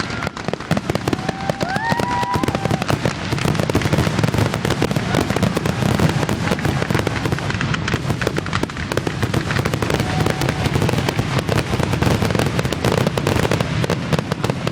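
Fireworks going off in a rapid, dense barrage: crackles and bangs packed closely together over a low rumble, with no let-up.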